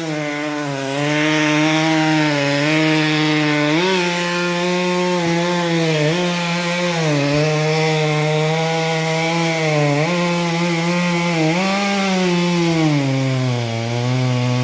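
Gas chainsaw cutting into the felled tree's trunk at full throttle, its engine note dipping repeatedly as the chain bites into the wood and climbing back as it frees up.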